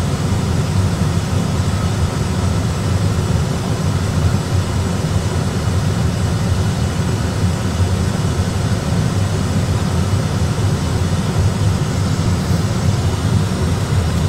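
Airbus A320 cockpit noise: a steady low rumble of engines and airflow, unchanging throughout.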